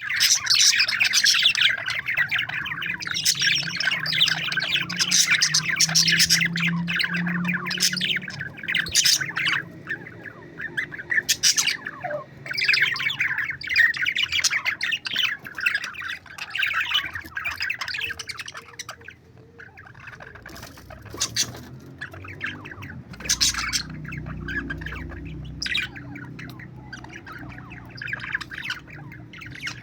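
A family of budgerigars chattering and squawking together in dense, overlapping chirps, warbles and sharp calls. The calling is busiest in the first half, thins out about two-thirds of the way through, then picks up again in bursts.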